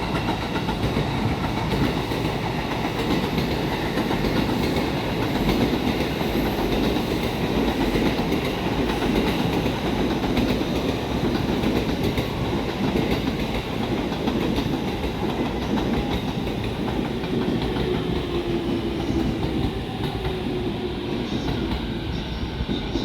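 Train running on the track: a steady rumble of wheels on rails, with a faint falling tone about three quarters of the way through.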